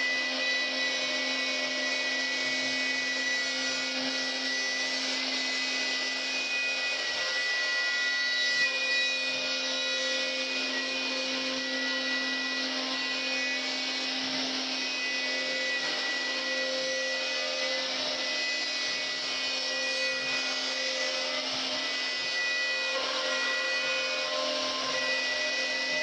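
CNC router spindle running steadily with a whine, its bit cutting into wood as it carves a relief.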